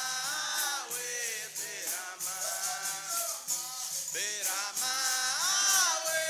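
Capoeira music: a berimbau on a steady low note with the rattling of a caxixi shaker keeping a regular rhythm, and voices singing over it.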